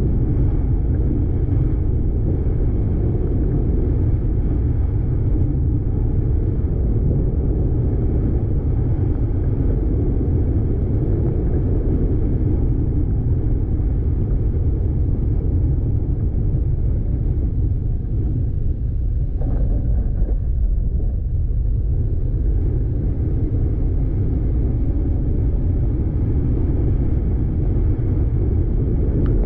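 Car driving on a dirt road: a steady low rumble of the engine and tyres.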